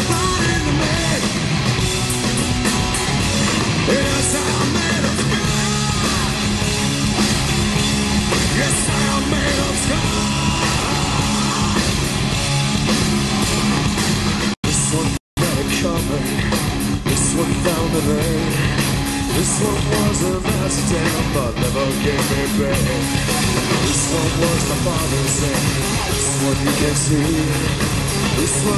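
Live hard rock band playing loud in an arena: distorted electric guitars and drums, with a man singing over them. The sound cuts out completely twice for a split second about halfway through.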